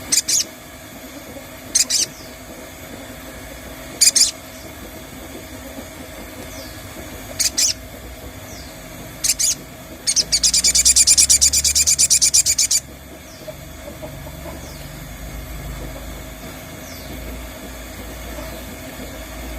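Sogon bird calls played as a lure: five short, sharp, high calls spaced a second or two apart, then, about ten seconds in, a fast rattling chatter lasting about two and a half seconds.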